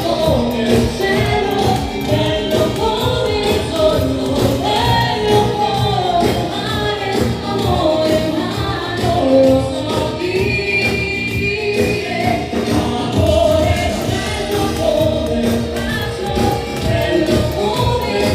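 Loud music with several voices singing a melody over a steady beat.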